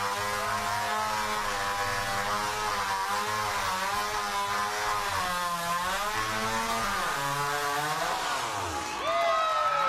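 Two-stroke chainsaw engine being revved, its pitch rising and falling in waves, then dropping away about eight seconds in.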